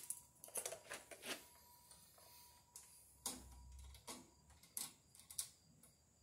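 Scattered light clicks and taps, about eight, spaced unevenly: tools and cable being handled at a metal breaker panel.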